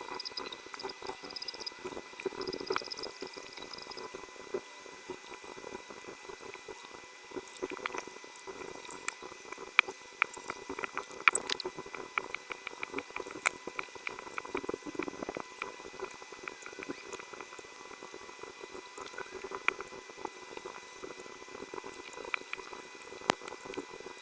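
Small irregular clicks, taps and light scraping of mechanical keyboard parts being handled and fitted together during assembly, with a faint steady whine underneath.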